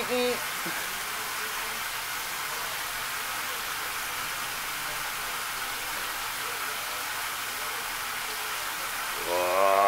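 Spice-coated chicken breasts sizzling in butter in a nonstick frying pan: a steady frying hiss.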